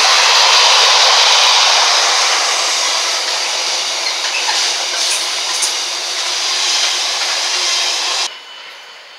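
Container wagons of a freight train running past: a steady rush of wheels on rail with a few sharp clicks. It cuts off suddenly near the end, giving way to a much quieter background.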